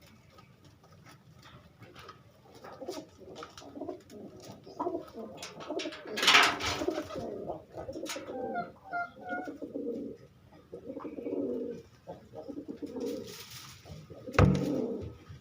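Domestic pigeons cooing in repeated low, soft calls, with many short clicks and taps around them and two louder noisy bursts, one about six seconds in and one near the end.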